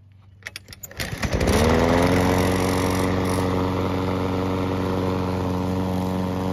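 Craftsman walk-behind lawn mower's single-cylinder engine pull-started on its new recoil starter rope: a few rattling clicks, then it catches about a second in, revs up and settles into a steady run, showing the restrung starter works.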